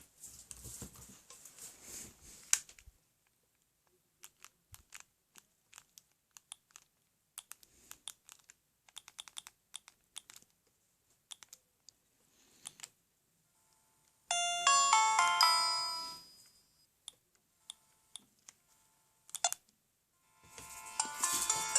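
Siemens SL55 mobile phone: a run of sharp button clicks as its menus are worked, then a short polyphonic ringtone melody from its speaker for about two seconds roughly two-thirds through, more clicks, and another ringtone starting near the end.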